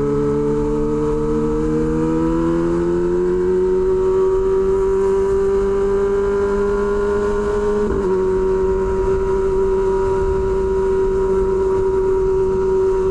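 Kawasaki Ninja ZX-25R's inline-four engine through an SC Project exhaust, running at steady road speed. The pitch climbs gently as it accelerates, holds, then breaks briefly about eight seconds in and settles slightly lower. Wind rumbles on the microphone underneath.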